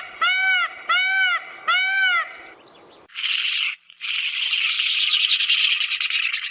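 A bird calling in a run of pitched calls, each rising and falling, about one every two-thirds of a second. The calls stop about two and a half seconds in, and a dense, fast chatter follows from about three seconds in.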